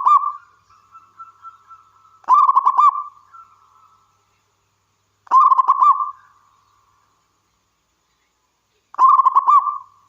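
Zebra dove (perkutut) cooing its song. Three full phrases about three seconds apart, each a quick run of pulsed coo notes lasting under a second, with the end of a fourth right at the start.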